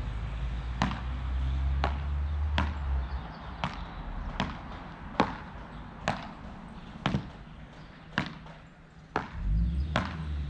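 Beach tennis rally: a ball struck back and forth with solid beach-tennis paddles, about eleven sharp pops at a steady pace of roughly one a second.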